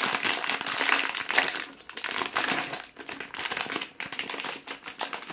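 A foil blind-box pouch crinkles and crackles as hands crumple it open and reach inside for the figure. It is loudest for the first two seconds and then comes in shorter spells of rustling.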